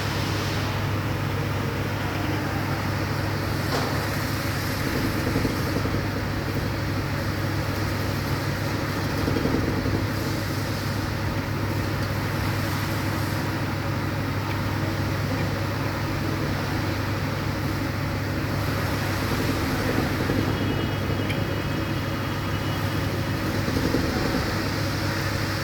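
Steady low mechanical hum of a running engine or motor, with an even background noise.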